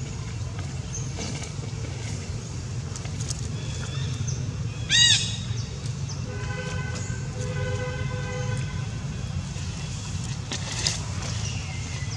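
Steady low rumble of outdoor background noise. One loud, short, arching animal call stands out about five seconds in. A fainter held tone with several pitches follows from about six to nine seconds.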